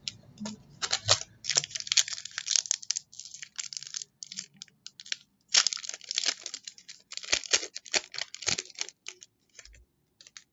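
Foil trading-card pack being torn open and its wrapper crinkled by hand, in irregular crackly rustles with short pauses, dying away about a second before the end.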